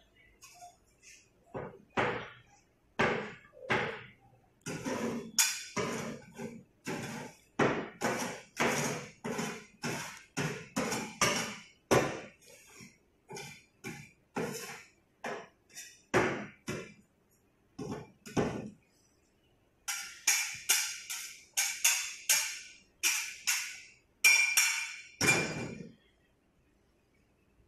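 Two metal spatulas repeatedly chopping and striking on a steel rolled-ice-cream cold plate as the ice cream base and mix-ins are chopped together, about one to three strokes a second. Near the end the strokes come in a quicker run and sound higher and thinner.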